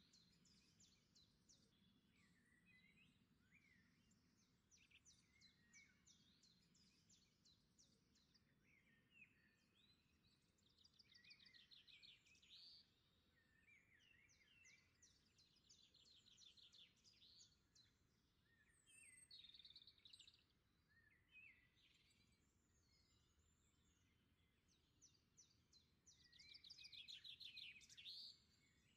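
Quiet birdsong: several birds chirping and singing rapid trills that come and go, the loudest trill near the end.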